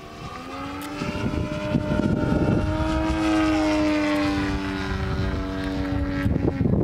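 Engine and propeller of a Carf MX2 radio-controlled aerobatic model plane in flight: a steady droning note that grows louder, rises a little in pitch and then sags slightly as the plane pulls up into a steep climb. It breaks up shortly before the end.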